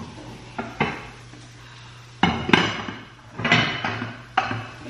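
Kitchen cookware and utensils clattering: two light clinks about a second in, then louder clanks and knocks through the second half, each with a short ring.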